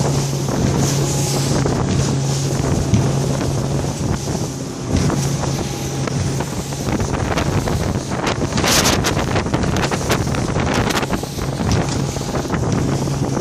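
Rigid inflatable boat running fast at sea: its engine gives a steady low drone under heavy wind buffeting on the microphone and the hiss and slap of the hull through the waves, with a louder rush of spray about two-thirds of the way through.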